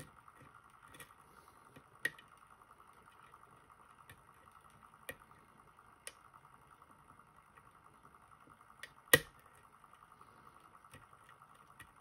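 Hook pick working the top pins of a JPM Surf euro cylinder under tension: scattered faint metallic ticks and clicks, with a sharper click a little after nine seconds in. A faint steady hum runs underneath.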